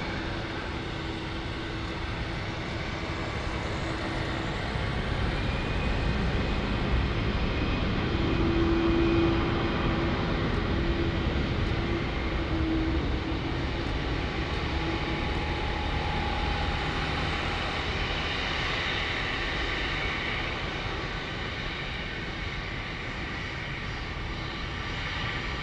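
Boeing 777 twin-jet airliner taxiing past with its engines at low taxi power: a steady rumble with a faint whine in it, growing a little louder about a third of the way through and then easing off.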